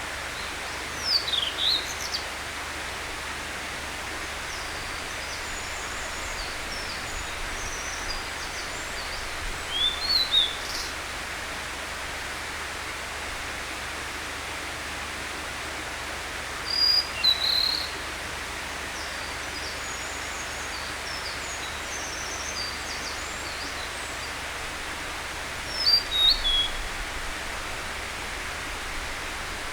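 Male blue-and-white flycatcher singing: four short phrases of sliding whistled notes, each about a second long and spaced several seconds apart. Fainter high bird notes sound between the phrases over a steady background hiss.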